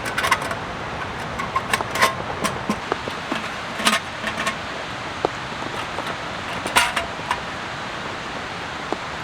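Steady rain hiss, with scattered clicks and light metallic clinks from gear being handled, most of them in the first half.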